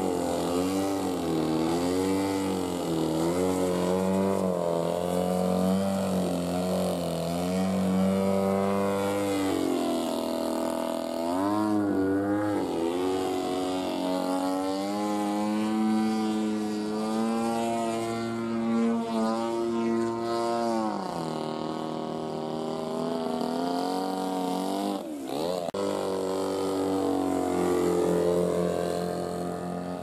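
Gasoline engine and propeller of an aerobatic radio-control model airplane in flight, its pitch rising and falling again and again as the throttle is worked through stunts. A little before the end the pitch sweeps sharply up and back down.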